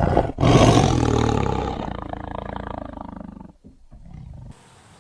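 Tiger roar sound effect: one long roar that peaks about half a second in and fades away over the next three seconds.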